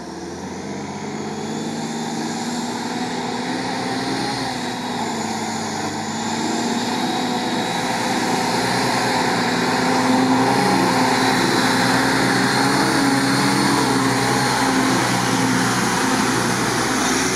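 Stock UAZ off-roader's engine pulling under load as it drives through deep mud, the revs rising and falling. It grows steadily louder over the first half as the vehicle approaches.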